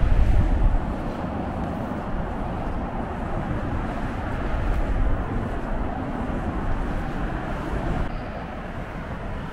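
Wind buffeting the microphone: a steady low rumbling noise, with a stronger gust in the first second.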